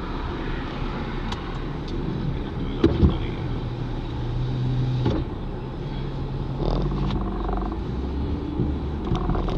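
Vehicle engine running steadily, heard from inside the cab, its low hum shifting in pitch midway, with a couple of sharp knocks about three seconds in.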